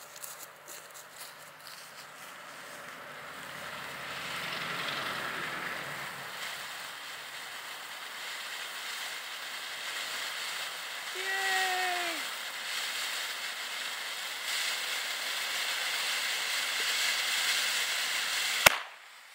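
Shogun "Desert at Night" firework fountain spraying sparks with a steady hiss that builds over the first few seconds and keeps going, with a brief falling tone about halfway through. Near the end a single sharp pop cuts the hiss off as the fountain turns to launching its shots into the sky.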